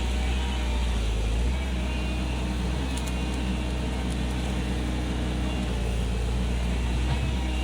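Komatsu PC135 hydraulic excavator's diesel engine running steadily.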